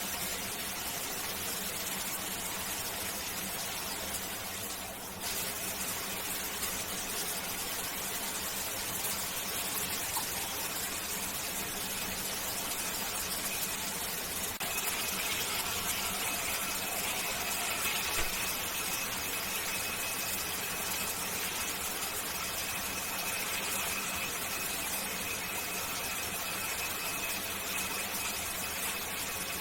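Shower water running in a steady hiss. About halfway through, a thin, steady high-pitched squeal joins it and holds almost to the end.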